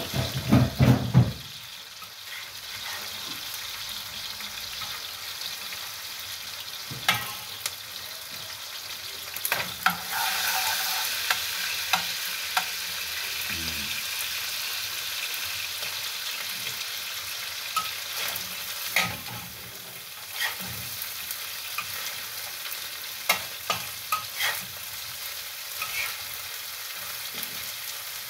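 Omena (small dried fish) and onions sizzling as they fry in a wide pan, stirred with a metal spatula that scrapes and clicks against the pan every few seconds. A short loud low rumble in the first second or so.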